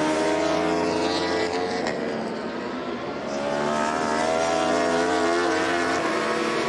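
Racing superbike engines at high revs as motorcycles go through a corner. The engine note dips about three seconds in, then climbs again as they accelerate.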